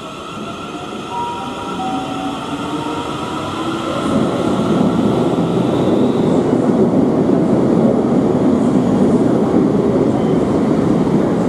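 Siemens Class 350 Desiro electric multiple unit arriving at the platform: its traction equipment whines in several tones that shift in pitch as it slows. From about four seconds in, the loud rumble of the carriages rolling past takes over.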